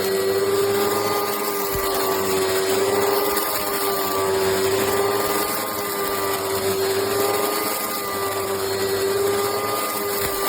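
Oreck XL bagged upright vacuum cleaner running steadily: a loud motor whine that wavers slightly in pitch over rushing air.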